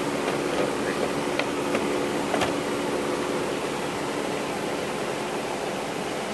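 Steady rushing noise with a faint hum, and a few light clicks about one and two seconds in as the plastic lower dash trim panel is pushed into place.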